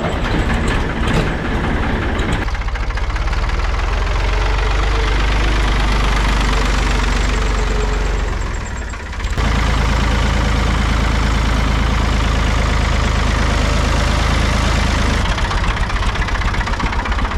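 Diesel tractor engine running steadily at idle just after being started, with a brief drop in level a little past halfway.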